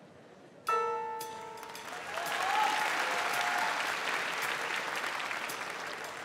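Backing music for a dog routine starts abruptly with a held chord about a second in, then audience applause swells over the music and continues.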